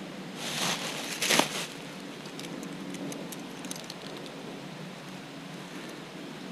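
Two brief scraping rustles, the second one sharper, a little under a second and about a second and a half in. A run of faint light clicks follows, over a steady low hum.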